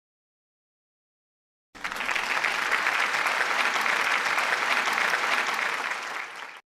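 Applause from a crowd, a dense steady clapping that starts about two seconds in and cuts off abruptly near the end.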